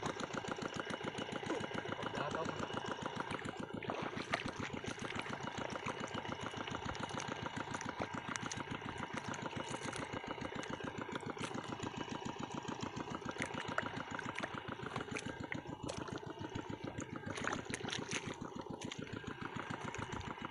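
Small engine of a water pump running steadily, with a rapid, even firing beat.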